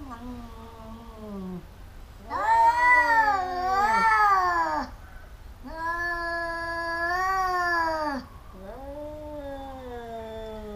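Two domestic cats in a face-off caterwauling: long, drawn-out, wavering yowls one after another, four in all, the loudest starting about two seconds in. It is threat yowling, the warning before a cat fight.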